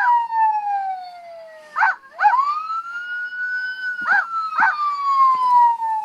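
Sound chip of a talking Chase Glow Friends plush playing a recorded police siren that glides slowly down in pitch, swoops back up about two seconds in and falls again. Over it a cartoon pup's voice gives short howls, about four of them.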